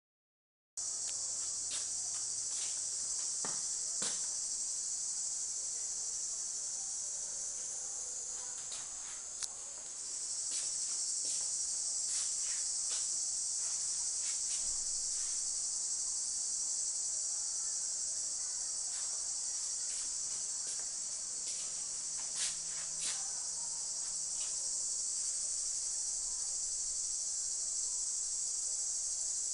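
A dense, steady, high-pitched insect chorus that cuts in abruptly about a second in, with scattered light clicks and taps over it.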